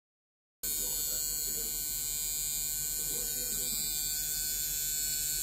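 Tattoo machine buzzing steadily, starting abruptly after half a second of silence, with faint voices underneath.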